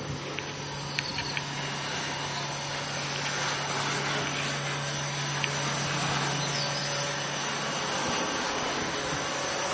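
Nieros 2000-litre vacuum tumbler running: a steady hum with a constant low tone under an even hiss, and a few light clicks about a second in.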